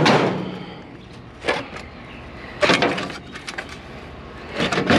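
Steel door runners (long metal tracks) clanking and rattling against the metal trailer and other scrap as they are loaded. It comes as several sharp metallic knocks, the loudest at the start and about two and a half seconds in, with lighter rattles between and near the end.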